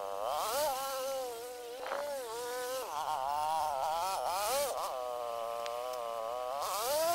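Small engine buzzing at high revs, its pitch rising and falling again and again, climbing higher near the end.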